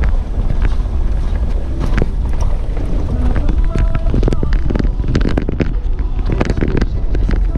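A vehicle driving over a rough, rocky unpaved road: a steady low rumble with frequent knocks and rattles as the body jolts over stones.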